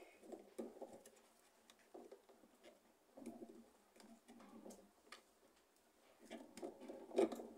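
A pigeon cooing faintly several times, in short repeated phrases. Faint clicks of wire connectors being handled on a washing machine's control board run alongside.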